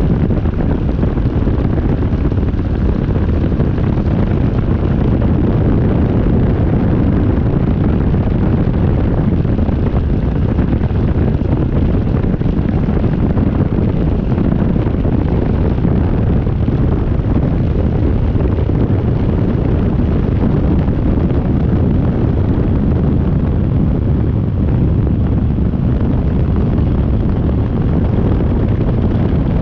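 Rotax 503 two-cylinder two-stroke engine of a Phantom X1-E ultralight running steadily, heavily mixed with wind buffeting the microphone, which makes a dense, even, low rumble.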